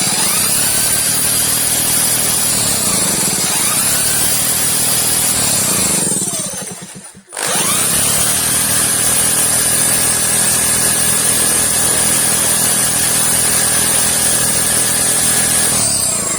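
Power drill, fitted with a cut-down extension bar, spinning a small generator engine over, with a steady whine. It runs for about seven seconds, stops briefly, then starts again and runs to near the end.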